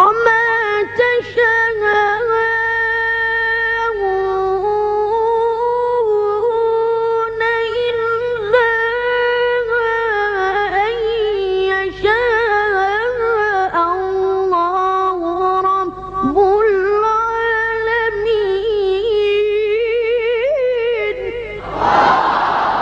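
A Quran reciter's high-pitched voice chanting one long, melodic, ornamented phrase in a single breath, in the drawn-out maqam style of recitation. Near the end the voice gives way to a burst of crowd noise from the listeners.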